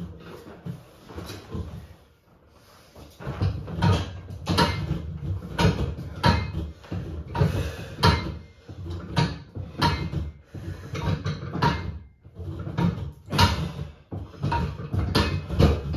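Plate-loaded leg-extension attachment of an IROTEC home weight bench worked through repeated reps. The lever and weight plates give short knocks and creaks, about one and a half a second, starting about three seconds in.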